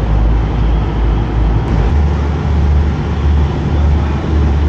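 An engine running with a loud, steady low rumble over a noisy hiss. About two seconds in, the rumble steps up in pitch and begins to pulse.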